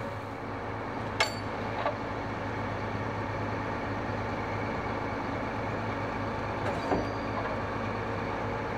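Concrete pump truck's diesel engine running steadily, with a sharp metallic clank about a second in and lighter knocks shortly after and near the end.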